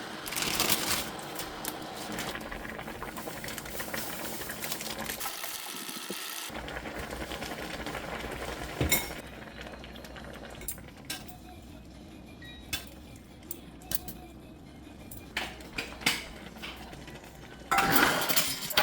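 Kitchen cooking sounds: a steady hiss for about the first nine seconds, then scattered clinks and knocks of utensils against pots and dishes, with a louder scraping stretch near the end.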